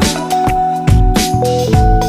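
Background music with a steady drum beat and held notes.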